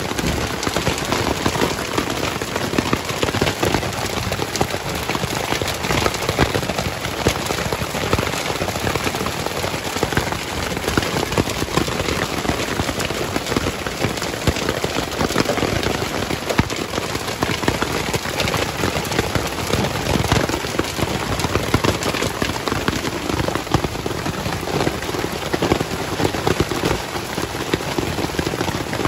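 Heavy hail pelting down on a tarp overhead and on the ground, a dense, steady patter of countless small, sharp impacts.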